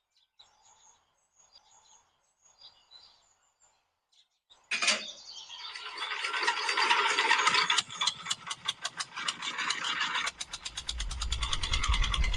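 A small machine mechanism starts with a sudden loud noise about five seconds in. It then runs with a dense, fast clicking rattle.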